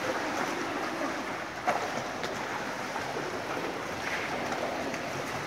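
Pool water splashing and churning as swimmers paddle foam boards with their arms, with one sharp hit about a second and a half in.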